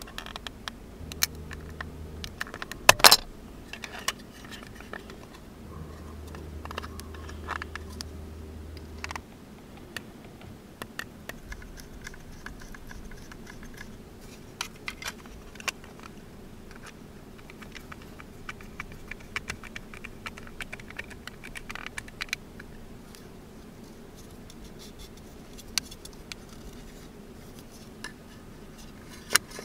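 Small plastic and wooden model parts being handled and fitted by hand: scattered light clicks, taps and scratching, the loudest a sharp click about three seconds in. A low hum sounds twice in the first ten seconds.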